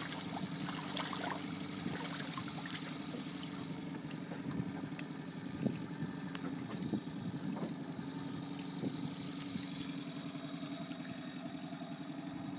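Boat engine idling with a steady low hum, with a few short splashes and knocks in the first few seconds as a sea turtle is dropped into the water.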